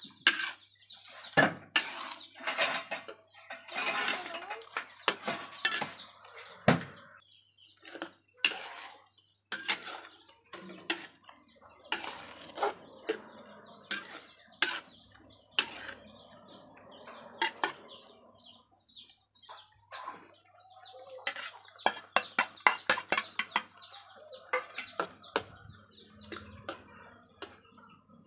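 Metal spatula scraping and clanking against a steel wok while stir-frying beef and mushrooms, in irregular strokes with a fast run of clanks about three quarters of the way through.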